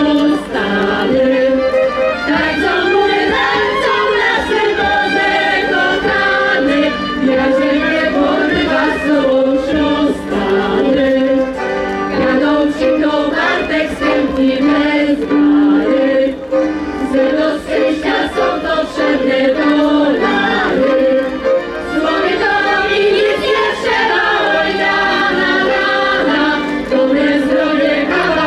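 A choir singing a song with instrumental accompaniment.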